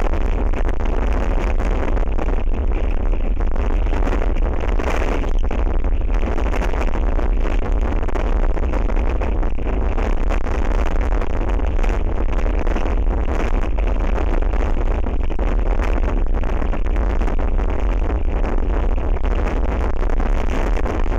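Strong wind buffeting the outdoor camera's microphone: a steady, loud rush with a heavy low rumble, and no distinct events.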